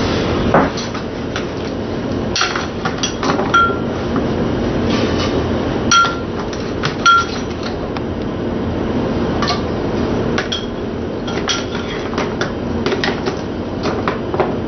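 Metal kitchen tongs clicking and knocking as vegetables are picked from a plastic tray and dropped into a stainless-steel stockpot, with a few sharp ringing clinks of metal on the pot.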